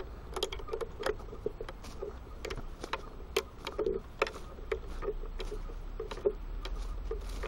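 Footsteps crunching through dry leaf litter and twigs, a few irregular crunches a second, over a low steady rumble.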